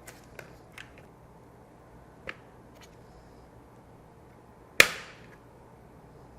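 Plastic support tabs of an MSA V-Gard H1 Fas-Trac III suspension snapping into the helmet shell: a few light clicks in the first second, another at about two seconds, and one loud, sharp snap about five seconds in as a tab locks into place.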